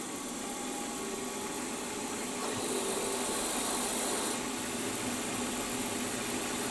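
Milling machine spindle running steadily with a 2.6 mm drill boring a corner hole through a model steam-engine steam chest. A brighter hiss from the cut rises over the motor for a couple of seconds in the middle.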